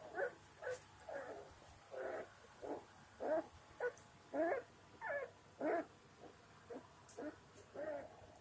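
Three-week-old Labrador retriever puppies whimpering as they play: a string of short, high calls, some bending up and down in pitch, a little under two a second.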